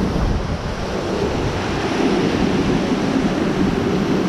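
Wind buffeting the microphone over the rush of a boat's wake at speed on open sea, a steady heavy roar.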